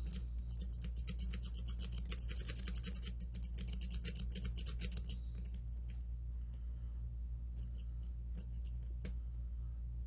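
A lock pick being raked quickly back and forth over the pins of a Master Lock Magnum M930 padlock's five-pin cylinder under tension: a dense run of scratchy metal clicks for about five seconds, then a few sparser strokes near the end.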